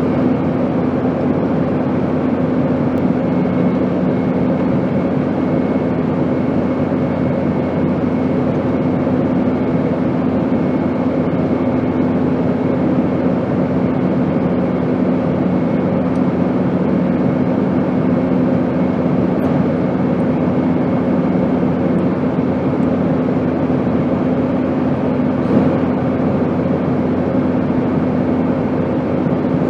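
Airplane engine noise: a steady, unchanging roar with a few constant hum tones running through it.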